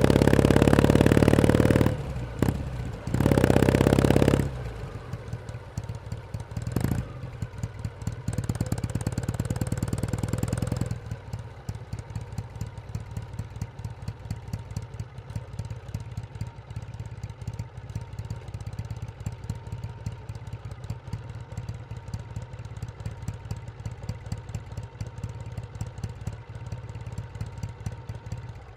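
Kawasaki W1S vertical-twin engine running loud at higher revs, dropping off twice briefly in the first few seconds. It then runs more quietly and, from about eleven seconds in, settles to a steady idle with an even beat.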